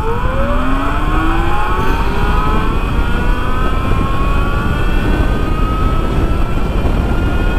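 Ultraviolette F77 electric motorcycle accelerating hard from a standstill in combat mode. The electric motor's whine climbs in pitch, several tones together, fast at first and then more slowly, over loud wind rush on the microphone.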